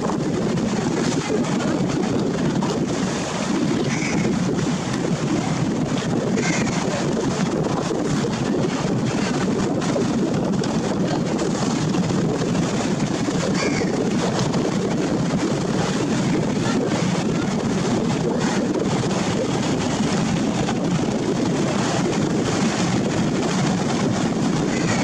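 Large multi-deck river passenger launch running at speed: a steady low rumble of its engines and the rush of its bow wave through the water, with wind noise on the microphone.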